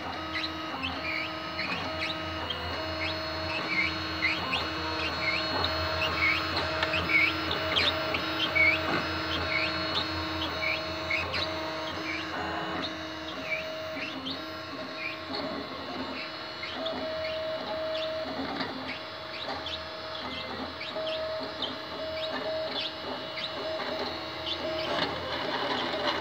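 FDM 3D printer printing, its stepper motors whining in shifting tones as the print head darts back and forth laying down infill, with short falling chirps at each quick move.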